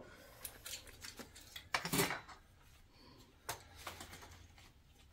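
Fluorescent lamp sockets being handled: a few scattered light clicks and clacks of plastic against metal, the loudest a pair of clacks about two seconds in.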